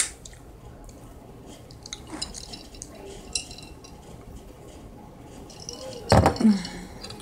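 A sharp clink of cutlery on a plate at the start. About six seconds in comes a loud knock and brief clatter as a glass mason jar of iced drink is set down on the table.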